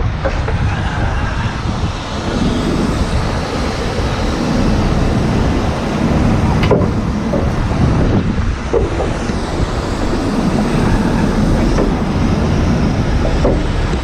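Century 1150R rotator wrecker on a Peterbilt 389 running at its control station, a steady diesel engine and hydraulic working noise as its outrigger beams are deployed. Heavy wind rumbles on the microphone, and there is a sharp knock about seven seconds in.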